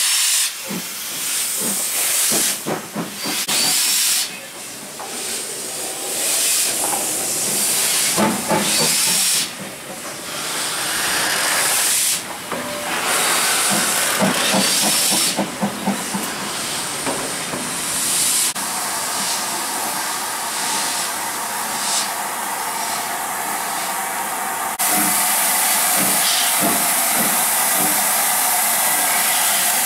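Steam locomotive hissing loudly, with irregular short knocks and chuffs in the first half. About two-thirds through, a steady hum joins in, and near the end the hiss becomes steady and louder.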